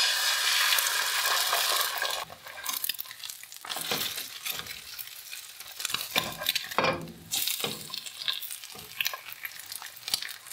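An egg hitting hot oil in a non-stick frying pan, sizzling loudly for about two seconds. Then a quieter sizzle as a plastic spatula scrapes and knocks against the pan under the frying egg.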